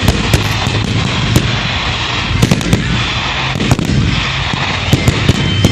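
Fireworks display going off: a dense, continuous crackling, with many sharp bangs scattered throughout.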